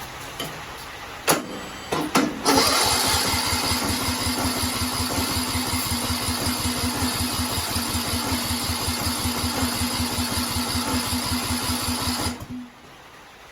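A 17.5 hp Briggs & Stratton mower engine turning over on its electric starter. There are a couple of clicks, then about ten seconds of even, rapid cranking pulses over a steady starter whine, which stop suddenly near the end. The engine cranks without catching, a sign that it is not getting fuel, which the owner puts down to the carburetor bowl not refilling.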